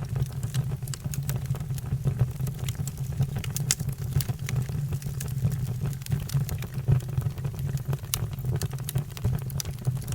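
Fire burning with a steady low rumble of flame, dotted with frequent irregular crackles and sharp pops.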